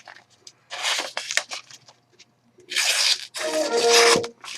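Sharpened knife blade slicing through a sheet of paper: about three quick hissing cuts, a second or less each, showing the edge glides through cleanly.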